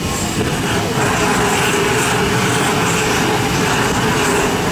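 Hand-held gas blowtorch on a hose burning with a steady rushing hiss as its flame sears cubes of steak on a grill; the roar comes up about a second in and then holds steady.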